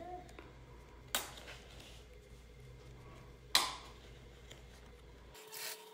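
Two sharp clicks about two and a half seconds apart over a faint steady hum, from the fabric being handled and set in place on a Bernina sewing machine; the machine is not stitching.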